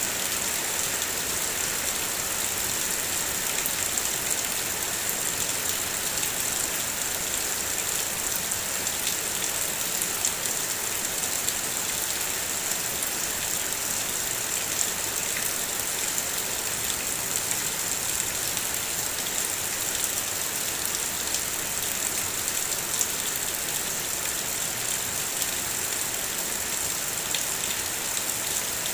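Heavy rain falling steadily: a dense, even hiss with many fine, separate drop ticks.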